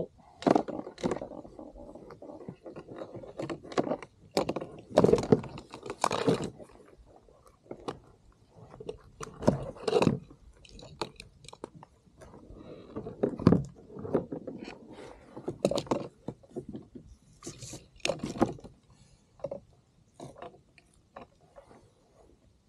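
Irregular knocks, thuds and scrapes on the kayak's hull and deck as a just-caught fish is handled and measured, some of them likely the fish flapping against the boat. They come in clusters, loudest about five, ten, thirteen and eighteen seconds in, and thin out near the end.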